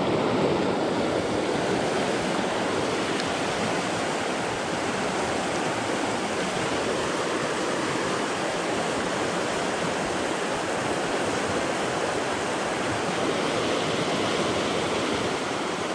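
Mountain trout stream rushing over rocks through small whitewater rapids, a steady, unbroken sound of running water.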